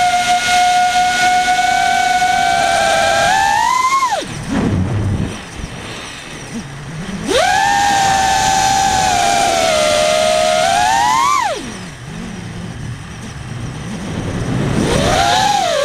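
FPV quadcopter's brushless motors (Lumenier Freybott with 5045 props) whining, the pitch rising on the throttle and then cutting off sharply, twice. In each gap a low wind rumble fills in while the throttle is off, and the whine comes back about seven seconds in and again near the end.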